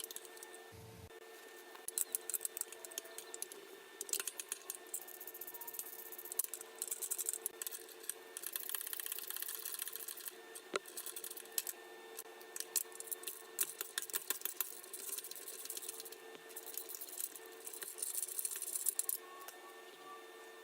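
Hand tools working on metal: irregular bursts of quick clicking and rattling, with a brief low thump about a second in.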